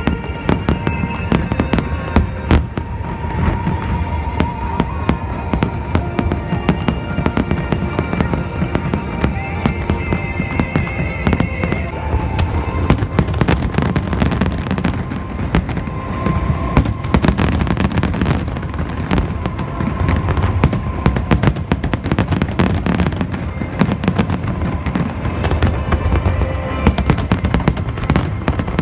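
Fireworks bursting and crackling in rapid succession, one bang close on another, with music playing underneath.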